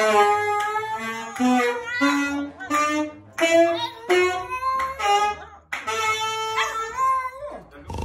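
A Shih Tzu howling in a string of wavering, pitched notes, each under a second long, rising and falling like singing.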